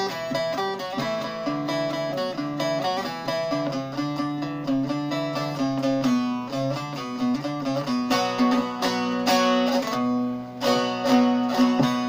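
Bağlama (Turkish saz) played solo with a plectrum: a quick plucked melody over a steady drone, in an instrumental break between sung verses. The playing dips briefly about ten seconds in, then picks up again with dense strokes.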